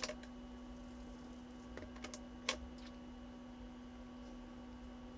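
A few light clicks and taps from kitchen containers being handled while bread cubes are seasoned, over a steady faint hum.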